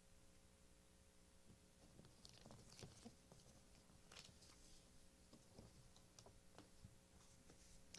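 Near silence over a faint steady hum, with a few faint ticks and rustles of paper sheets being handled on a music stand.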